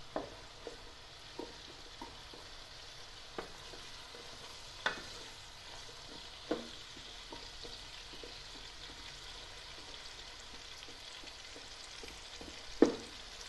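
Sliced onions sizzling in olive oil in a stainless steel pot, stirred with a wooden spoon that knocks against the pot now and then, loudest once near the end.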